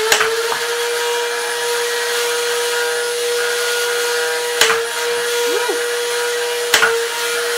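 Flywheel motors of a Nerf Rival Zeus MXV-1200 blaster, run on a 3S LiPo battery instead of its C cells, spinning up and then whining at a steady high pitch. Twice there is a sharp crack with a brief dip in the whine as a round is fired through the flywheels.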